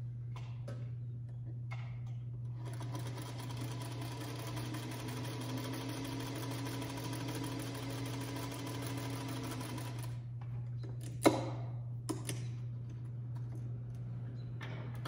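Electric sewing machine stitching a seam, starting about two and a half seconds in and running steadily for about seven and a half seconds before stopping. About a second later comes a sharp click, then a lighter one, over a low steady hum.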